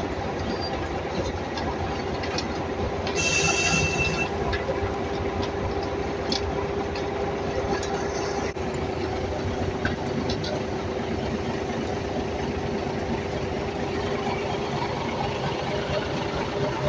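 Heavy construction machinery running steadily with a constant whine, and a brief high-pitched squeal with hiss about three seconds in.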